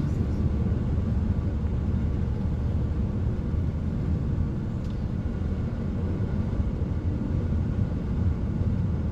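Steady engine and road rumble heard from inside a moving tour vehicle.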